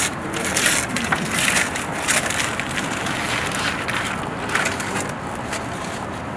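Wrapping paper crinkling and tearing as a small gift box is unwrapped by hand: a run of short, irregular rustles, thinning out after the first few seconds.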